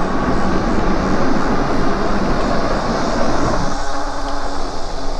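Wind rumble and riding noise on a bike-mounted action camera while an e-bike is ridden. The low rumble drops away about three and a half seconds in, as the bike eases off.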